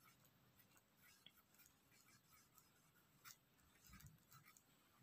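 Faint scratching of a pencil writing on a paper workbook page, in short irregular strokes.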